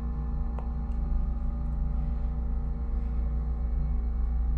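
Otis Series M2 hydraulic elevator's machinery humming steadily as the car travels: a deep drone with several steady tones above it, heard from inside the cab.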